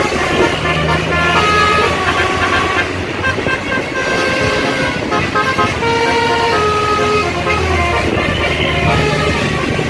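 Bus 'telolet basuri' multi-tone musical air horn playing a tune of short notes at changing pitches. A bus engine runs underneath, swelling about a second in and again near the end.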